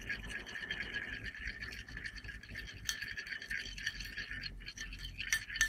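A metal spoon scraping and clicking against a glass petri dish as it stirs salt into bentonite slurry, with many small irregular scrapes and ticks. A steady high-pitched hum sounds behind it.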